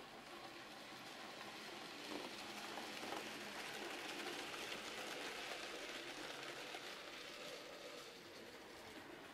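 Scale model train running on the layout's track: a steady rolling noise that grows louder in the middle and eases a little near the end.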